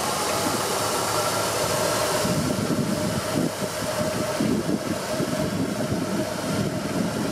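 Kubota M7171 tractor's four-cylinder diesel running under load, pulling a combination drill whose PTO-driven rotary harrow and planter work the soil: a steady engine and machinery noise with a constant whine. A high hiss drops away about two seconds in.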